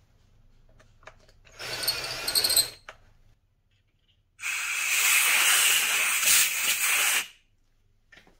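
Cordless drill briefly spinning a chamfer into the entrance of a drilled hole in cast iron, a whining run of about a second. Then a compressed-air blow gun hisses steadily for about three seconds, clearing the cast-iron dust from the hole.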